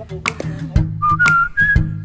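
Background music: a whistled melody over a steady beat of about two strikes a second.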